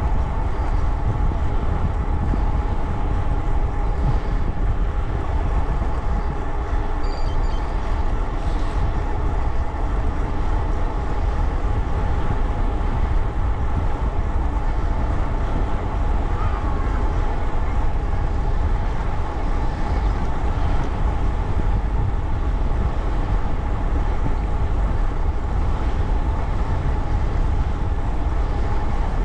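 Steady riding noise while moving fast: a heavy wind rumble on the microphone, with an even, unchanging whine from the vehicle's drive or tyres.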